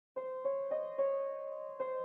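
Piano improvisation beginning: single notes played one after another, about three a second, starting just after the opening.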